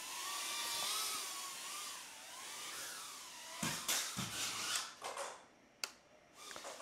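Meteor75 Pro tiny whoop drone's small motors and propellers whining, the pitch wavering with throttle. About three and a half seconds in it crashes into a wall with a quick run of knocks and scrapes, then the motors go quiet, with a light click a little later. The crash knocks its O4 antenna off.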